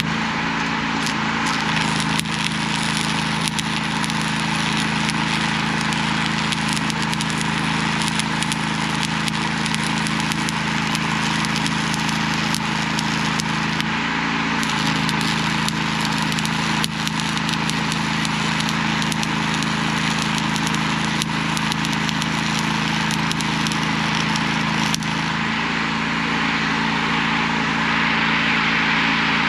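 Arc welding crackling steadily as the broken ear and pin are welded back onto an excavator stick, with an engine running steadily underneath. The engine's tone shifts a couple of seconds in, again around the middle, and a few seconds before the end.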